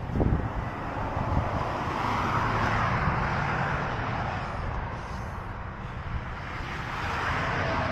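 Road traffic passing: a vehicle's tyre and engine noise swells and fades about two to three seconds in, and another approaches near the end, over a low steady rumble.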